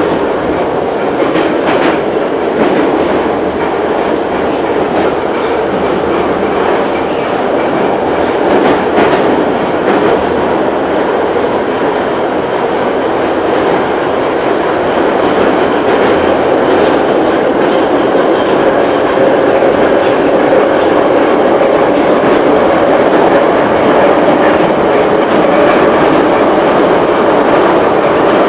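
Moscow Metro 81-717/714 train running at speed, heard from inside the car by the doors: a loud, steady wheel-on-rail rumble with scattered rail-joint clicks and a faint whine that climbs slightly in the second half.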